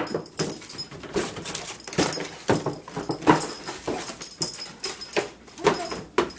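Pet dog making a series of short play noises, one every half second to a second, while worrying a towel.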